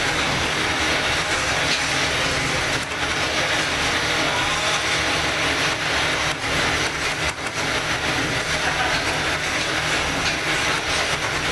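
Kominato Railway KiHa 200 diesel railcar running, its DMH17C diesel engine and hydraulic transmission with wheels on the rails giving a steady, loud noise. Some sharp clicks come in from about halfway through.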